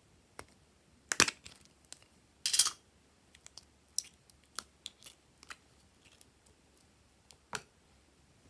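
Soft plastic bow-shaped container being handled and squeezed: sharp clicks and crackles, with two louder crackling bursts about a second and two and a half seconds in, then scattered light clicks.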